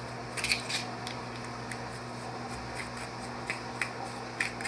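Handling noise from an NcStar rifle scope turned over in the hands: light clicks and rubbing of the scope body and fittings, with a few sharp clicks about half a second in and a cluster near the end, over a steady low hum.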